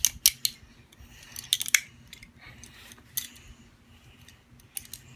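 Sharp metallic clicks of a folding pocket knife multi-tool being handled, its tools snapping open and shut: single clicks at the start, a quick cluster about a second and a half in, another click about three seconds in, and two more near the end.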